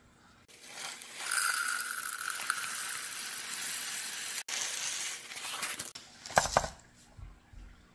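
Expanded clay pebbles poured from a plastic bag into a plastic grow basket: a continuous rattling patter for about five seconds, then a couple of sharp knocks near the end as the filled pot is handled.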